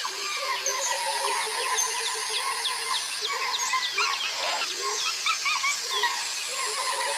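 Jungle ambience of many birds chirping and calling over one another, with warbling lower calls. A high, steady buzz stops and starts, dropping out near the middle and coming back near the end.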